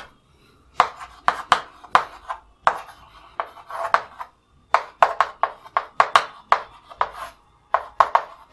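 Chalk writing on a chalkboard: quick, irregular taps and short scratches as each stroke is made, several a second, broken by brief pauses.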